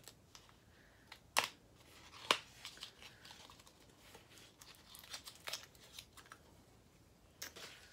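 A small cosmetics product box being fiddled with and pried open by hand: faint crinkling and scattered clicks, with two sharper snaps about a second and a half in and again a second later.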